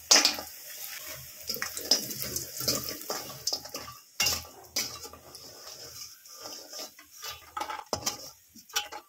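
A metal spatula scraping and clinking against a steel kadai as bori (sun-dried lentil dumplings) are stirred in a little hot oil and scooped out. The knocks come at irregular intervals; the sharpest are just after the start and about four seconds in.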